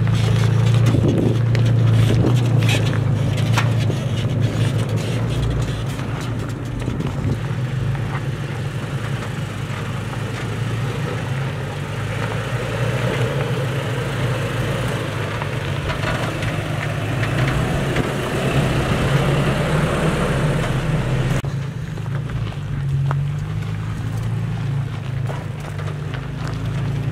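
Pickup truck engine running steadily at low speed while crawling over a rocky trail, with scattered knocks and crunches from stones under the tyres in the first few seconds.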